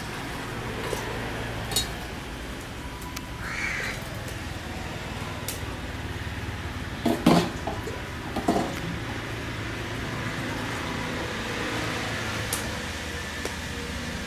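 A steel mixer jar clanks sharply twice while the curry paste is poured out, about seven and eight and a half seconds in; a crow caws once about four seconds in, over a steady low background.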